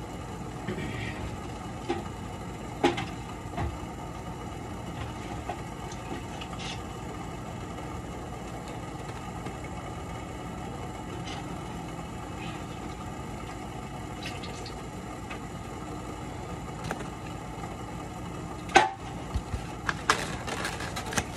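Foam clamshell takeout containers being handled and filled: scattered light taps and rustles, then a sharp knock a little before the end and a few clicks as a lid is pressed shut, over a steady background hum.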